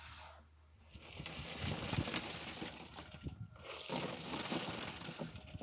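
Wet concrete poured from a bucket into a wooden column form, the gravelly mix sliding and rattling down inside the boards in two gritty rushes.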